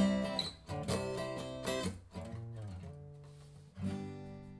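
Closing music: acoustic guitar strumming chords, with a last chord struck near the end and left ringing as it fades.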